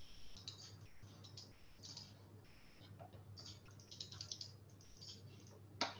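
Faint, irregular clicking of computer keys in small clusters, with one sharper click near the end, over a steady low electrical hum.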